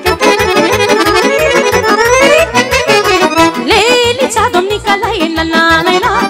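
Lively lăutărească dance music led by a Roland digital accordion over a quick, steady bass beat. The accordion plays a rising run, then a wavering melody from about halfway through.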